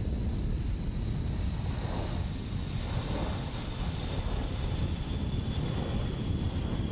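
Jet engines of a Boeing B-52H Stratofortress, eight TF33 turbofans, at takeoff thrust as the bomber rolls and lifts off. A steady deep rumble carries a thin high whine that drifts slightly down in pitch, with wind buffeting the microphone.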